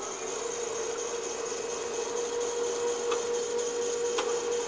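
Electric drive motor and gearbox of a 240-volt welding positioner whining steadily as the faceplate tilts from upright toward flat. Two sharp clicks come about three and four seconds in.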